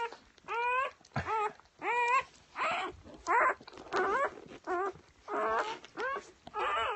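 Newborn golden retriever puppy crying in a string of short, high squeals, about ten in a row, each rising then falling in pitch.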